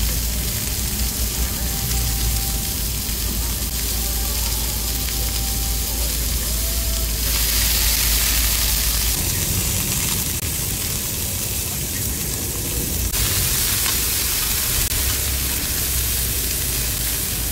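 Pork belly sizzling steadily as it grills, the sizzle growing louder about seven seconds in and easing back about six seconds later.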